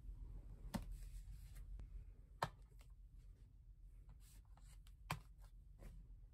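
Hardback books and stiff cards being handled and laid on a bed: a few light knocks and taps with soft rustling, over a low steady room hum.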